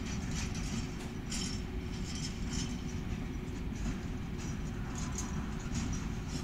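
Freight train wagons rolling past: a steady low rumble with short, irregular high metallic squeaks and clinks.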